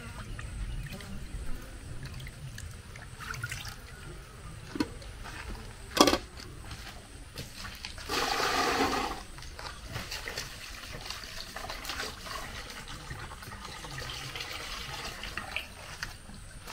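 Kitchen water sounds: water splashing and pouring. There is a sharp knock about six seconds in, and a louder splash lasting about a second a couple of seconds later.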